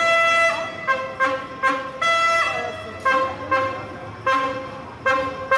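Diesel locomotive horn sounded in a rapid rhythmic pattern of about a dozen short blasts, a chord of several tones, with a slightly longer blast at the start and another about two seconds in.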